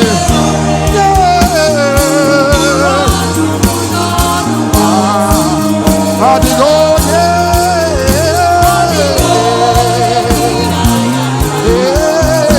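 Live gospel worship music: singers holding a slow, wavering melody over bass and regular drum beats.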